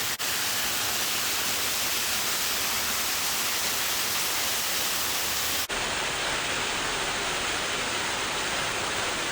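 Steady rushing noise of a waterfall, with two brief dips where the recording cuts, just after the start and about halfway through.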